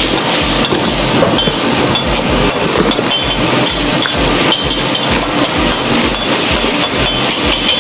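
Bamboo shoots sizzling in a wok, with a spatula scraping and clinking against the pan as they are stirred, over a low, evenly pulsing rumble.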